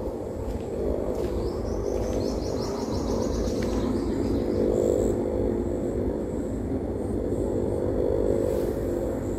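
A steady mechanical engine hum under low rumble on the microphone, with a bird giving a quick run of high chirps, rising step by step, about one and a half to three and a half seconds in.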